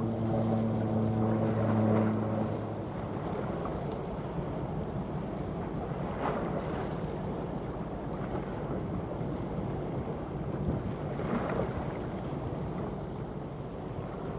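Passing coastal cargo ship's engine humming steadily for the first two and a half seconds, then fading. Wind buffets the microphone and water rushes throughout, swelling louder twice, about six and eleven seconds in.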